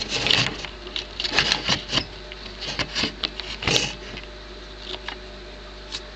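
Handling noise close to the microphone: a quick run of clicks, taps and rustles, loudest just before four seconds in, then a few faint clicks over a steady low background.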